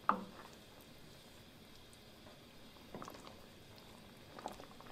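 Faint sounds of a spoon stirring mole sauce in a pot: a sharp knock right at the start, then a few soft scrapes and wet sounds about three and four and a half seconds in.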